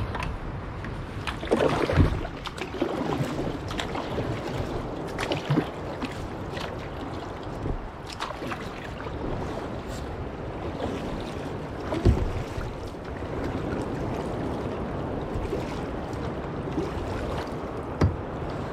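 Water lapping against a kayak hull with wind buffeting the microphone, and a few sharp knocks, one about two seconds in, one midway and one near the end.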